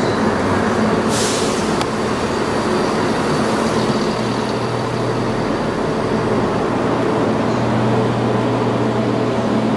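Class 170 Turbostar diesel multiple unit running slowly into the platform, its underfloor diesel engines giving a steady drone with a low hum that strengthens about halfway through. A short hiss of air sounds about a second in.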